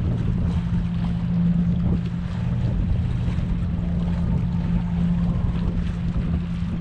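A steady low hum over a low rumble, like an idling boat or ship engine, with wind buffeting the microphone.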